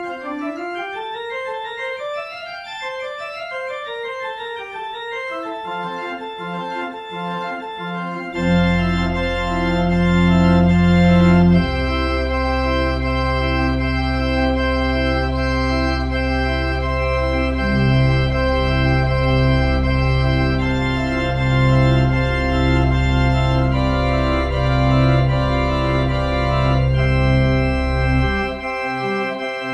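Pipe organ playing the closing postlude. It opens with quick running figures that rise and fall in the upper voices, then a deep pedal bass comes in about eight seconds in under full held chords, and drops out just before the end.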